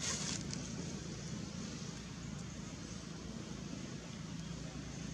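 Steady low engine hum, like distant traffic, under an even outdoor hiss, with a brief hiss right at the start.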